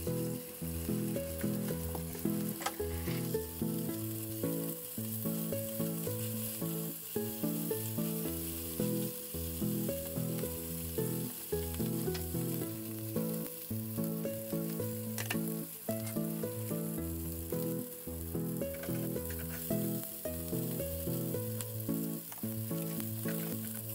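Meat-wrapped rolls sizzling steadily in an oiled frying pan, over light background music.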